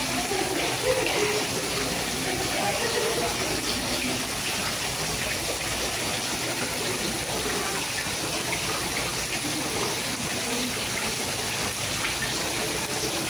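Indoor decorative fountain: small water jets splashing steadily into a pond, a continuous even rush of water. Faint voices are in the background, mostly in the first few seconds.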